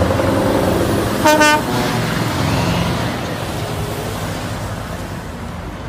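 Scania container truck's diesel engine running as it pulls through a turn, with one short horn toot about a second in. The engine sound slowly fades toward the end.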